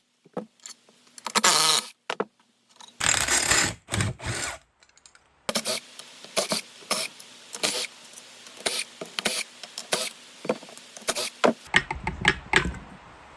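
Two short bursts of a cordless power tool undoing fasteners during an engine teardown, then a run of sharp metal clicks and clinks from tools and engine parts being handled.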